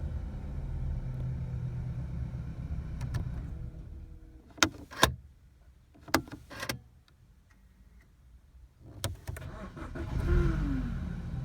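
Car engine running, then shut off about four seconds in. A few sharp clicks follow in the quiet, and near the end the engine starts up again.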